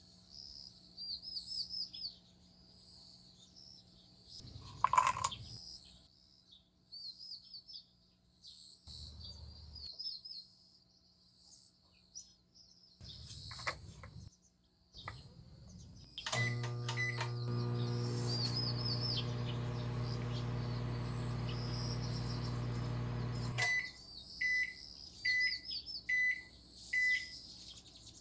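Microwave oven running with a steady hum for about seven seconds, then five short beeps as its timer ends. Birds chirp throughout, with a few handling clicks earlier, the sharpest about five seconds in.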